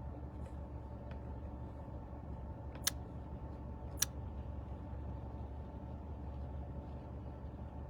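Steady low background hum of room noise, with two sharp clicks about a second apart near the middle.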